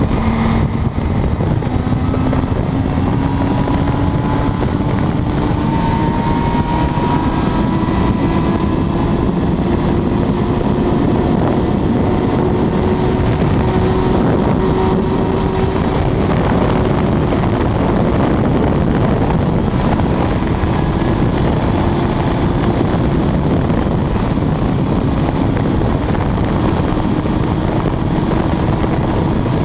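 Superbike's inline-four engine pulling hard at very high speed in top gear, its note climbing slowly, easing off briefly past halfway, then climbing again. A heavy rush of wind over the bike and rider is as loud as the engine.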